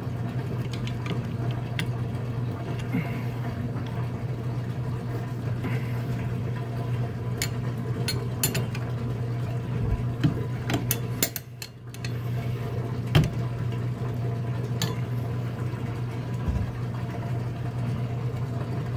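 Steady low mechanical hum, with scattered light clicks and taps from a hand working at the body and wiring of an unbolted boiler circulating pump; a sharper knock about two-thirds of the way through is the loudest sound.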